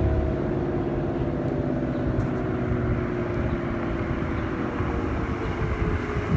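Outdoor tornado warning siren sounding on a test, a chord of several tones held steady and slowly falling in pitch, one tone starting to climb again right at the end.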